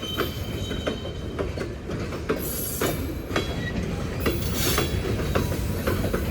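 Freight cars loaded with steel coils rolling past on a Norfolk Southern manifest train: a steady low rumble with wheels clicking over the rail joints. Brief thin wheel squeals and short bursts of high hiss come in a few seconds in.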